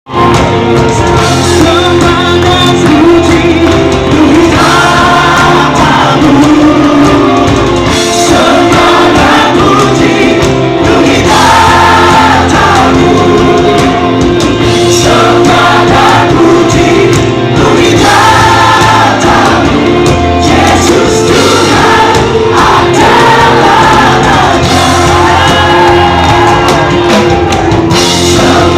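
A choir singing a Christian worship song over instrumental accompaniment, in sung phrases a few seconds long.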